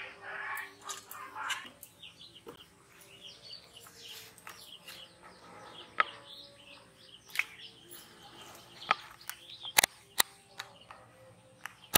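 Small birds chirping in the background, with several sharp clicks in the second half.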